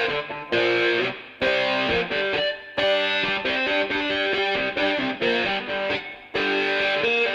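Music: a distorted electric guitar plays chordal phrases, each about a second long, with brief stops between them and no drums yet.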